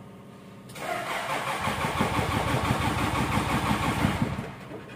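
Starter motor cranking a freshly rebuilt light-truck diesel engine for about four seconds with an even pulsing beat, then stopping without the engine running on. The oil pressure warning light goes out during the cranking, a sign that the oil pump is building pressure.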